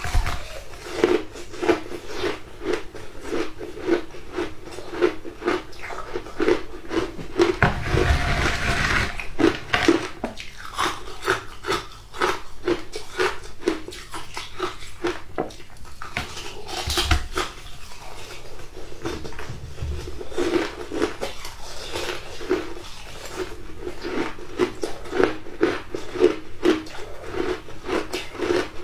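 Shaved ice being bitten and chewed close to the microphone: a steady run of crunches, about two a second, with two louder bursts partway through.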